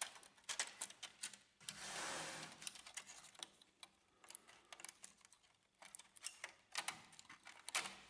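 Faint scattered clicks and light taps of plastic connectors and a circuit board being handled, with a short rustle about two seconds in, as flat ribbon cables are slid out of their connectors on a laser printer's main board.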